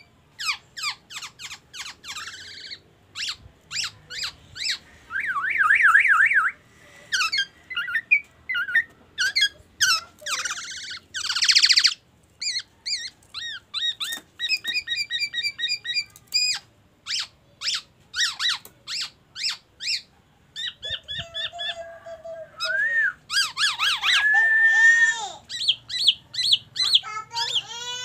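Black-naped oriole singing a varied song of short whistles, rapid trills and chatter, filled with mimicked white-rumped shama (murai batu) phrases. A fast wavering up-and-down whistle comes about five seconds in and again about four seconds before the end.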